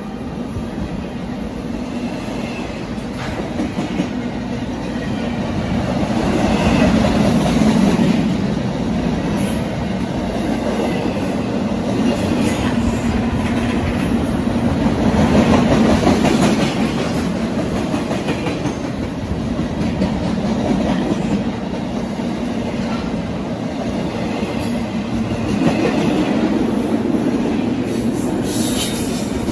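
Intermodal freight train of well cars and double-stacked containers rolling past at close range: a steady rumble and clatter of steel wheels on rail, swelling and easing every few seconds as the cars go by.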